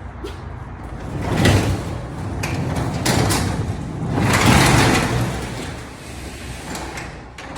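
Garage door being closed: a rolling, rumbling run that swells twice, with clicks and knocks along the way.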